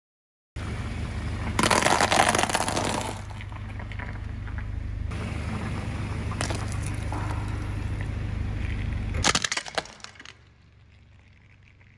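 A car tyre rolling over and crushing objects, with a car's engine running as a steady low rumble underneath. There is a loud crunch lasting over a second about two seconds in, a brief click near the middle, and a shorter sharp crunch a little over nine seconds in, after which it goes much quieter.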